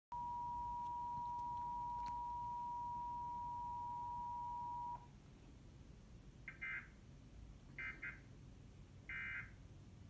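Emergency Alert System attention signal from a TV: a steady two-tone beep (853 and 960 Hz) for about five seconds that cuts off suddenly, followed by three short bursts of SAME digital data tones about a second and a half apart, the end-of-message code.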